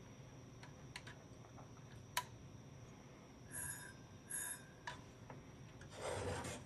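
Hand-turning of the bare platter and spindle hub of an IBM XT's 10 MB hard drive, with the cover off. A few faint clicks come first, then two brief scrapes a little past halfway and a louder rubbing rustle near the end. The powered drive does not spin up on its own.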